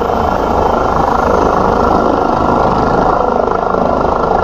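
Bell 429 helicopter's twin turboshaft engines and main rotor running loud and steady at lift-off power as it rises off the ramp.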